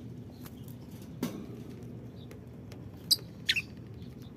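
Lovebird giving two short, shrill chirps about three seconds in, the second just under half a second after the first. A few faint clicks and a single knock come before them.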